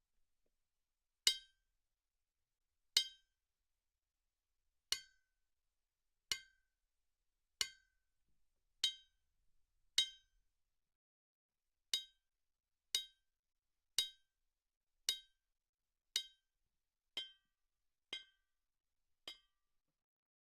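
A metal object struck again and again, about fifteen separate clinks, each with a short bright ring. The strikes come every second or two at first, then settle to about one a second, and the last few are fainter.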